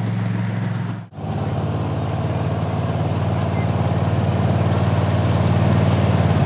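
Engine of a ride-on miniature locomotive running steadily at a low, even pitch, cut off for a moment about a second in and then resuming.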